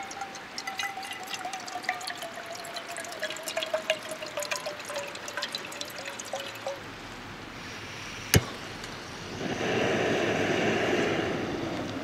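Water poured from a plastic bottle into a small metal saucepan, splashing and trickling, with a tone that slowly falls while it pours. A single sharp click comes about eight seconds in, then about two seconds of hiss near the end.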